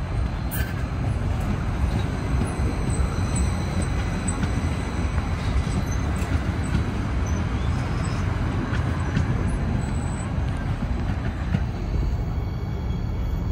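Train rolling past with a steady low rumble of wheels on rail and faint, thin high-pitched squeals.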